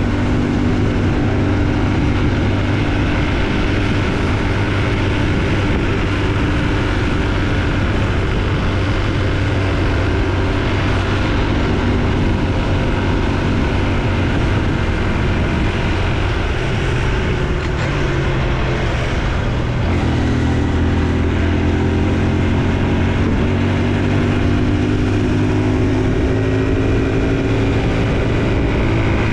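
Honda Super Cub C125's air-cooled single-cylinder engine running under way, over wind and road noise. Its note falls sharply about two-thirds of the way through, then climbs steadily as the bike picks up speed.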